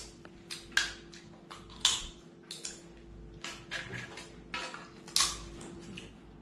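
Boiled crab shells and claws being cracked and picked apart by hand: irregular sharp cracks and crunches, a few louder snaps among them.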